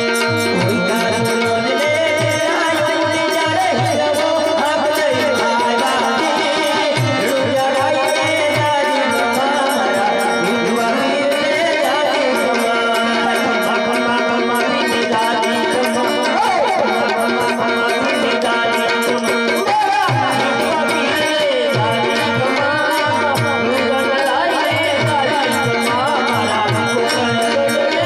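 Live Gujarati devotional bhajan: tabla-style hand drums keep a steady beat under an electric keyboard melody and singing.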